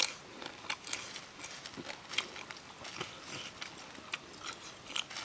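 Scattered soft clicks and crackles, a few each second, of a person shelling and chewing small cooked food by hand.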